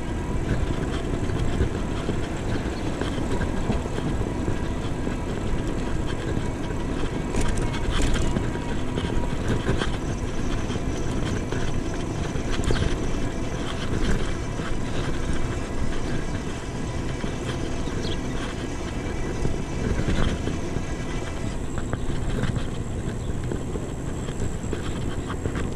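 Wind rumble on the microphone and tyre noise from an electric bicycle riding steadily at about 25 km/h, with a faint steady whine above the rumble.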